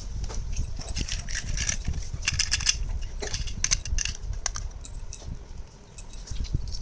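Small plastic toy pieces and packaging being handled, with a quick run of light clicks, taps and rattling.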